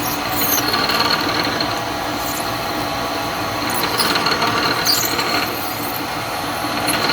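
Bridgeport milling machine running with a 5 mm tapping drill cutting into acetal (Delrin): a steady machine noise with a thin high whine, and short high squeals from the drill in the plastic several times.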